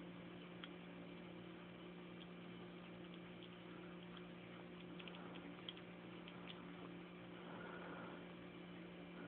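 Faint small clicks and smacks of a cat licking and chewing bits of ham, a few in quick succession about two-thirds of the way in, over a steady low hum.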